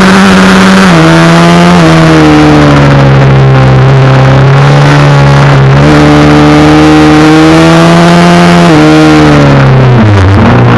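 Supermoto motorcycle engine running loud from onboard as the bike laps a track, its pitch dropping in steps at gear changes about one and two seconds in, climbing slowly, jumping up just before the middle, then falling away in steps near the end.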